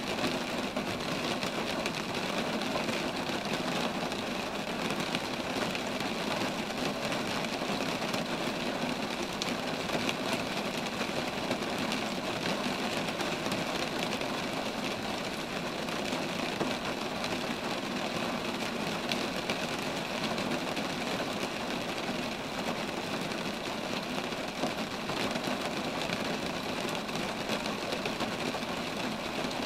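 Steady rain falling on roadside trees and the ground around them, an even, unbroken hiss of many small drops.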